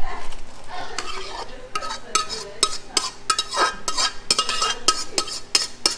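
A metal tool clinking and scraping against a metal cooking pot. There are irregular sharp clinks, about two or three a second, many with a short metallic ring.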